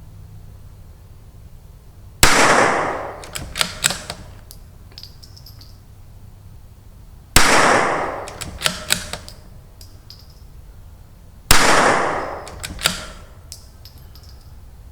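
A CZ 457 bolt-action .22LR rifle with an ATS barrel tuner fires Lapua Center X three times, about four to five seconds apart. Each sharp crack echoes briefly and is followed about a second later by a few metallic clicks of the bolt being worked to chamber the next round.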